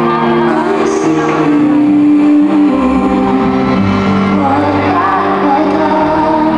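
Live pop concert music with sustained synthesizer chords; a deep bass comes in about three seconds in, and a woman sings a few held notes through her microphone.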